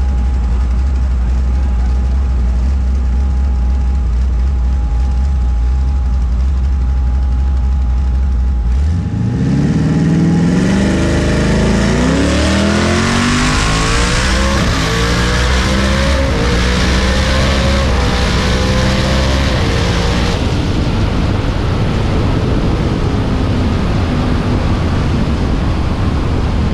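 Twin-turbo Ford Mustang's 5.0 Coyote V8 idling with a steady low rumble at the starting line. About nine seconds in it launches and pulls hard, its pitch climbing in steps through several quick upshifts. About twenty seconds in the throttle lifts and the engine falls to a lower, steady drone as the car coasts down the track.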